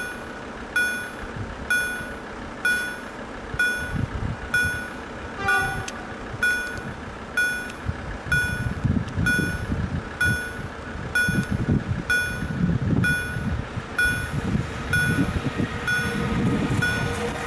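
Level-crossing warning signal beeping steadily, about once a second. From about halfway through, the low rumble of an approaching train hauled by an EU160 Griffin electric locomotive grows louder under the beeps.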